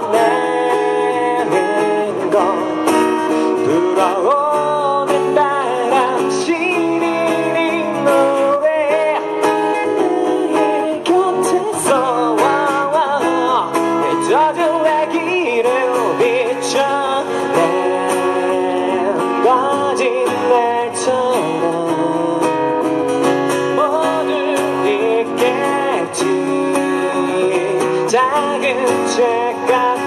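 Live solo performance: a man singing into a stage microphone while strumming a steel-string acoustic guitar.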